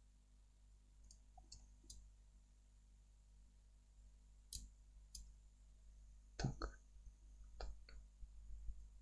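Faint scattered clicks of a computer mouse and keyboard being worked, with the loudest cluster of clicks about six and a half seconds in, over a low steady hum.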